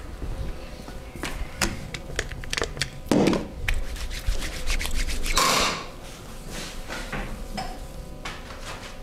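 Hands working over a person in a massage: a quick run of taps and slaps, with two longer rubbing sounds a little after three seconds and near the middle, then lighter scattered ticks.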